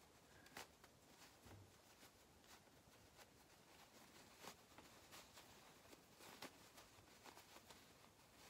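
Near silence with faint, scattered rustles and soft clicks of cotton fabric being handled as a sewn mask is pulled through its opening to turn it right side out.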